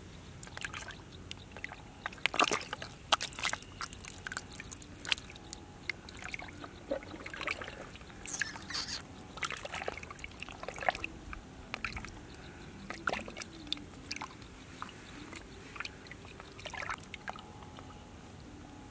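Muddy water in a small mud hole sloshing, with short irregular splashes and squelches as fish stir at the surface.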